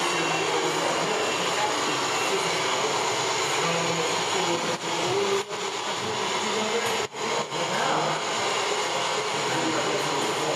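Radio-controlled scale trucks and construction models running, a steady mechanical noise with a background murmur of voices; the sound drops out briefly a few times near the middle.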